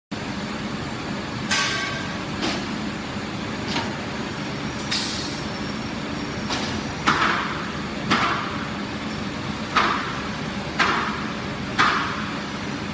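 Factory workshop noise: a steady machinery hum broken by short, sharp hissing or clanking bursts, about one a second in the second half.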